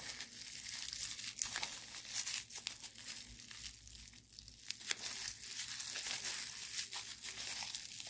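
Clear plastic wrap crinkling as hands peel it off a small metal fidget spinner, in quick irregular crackles with a quieter spell a little past the middle.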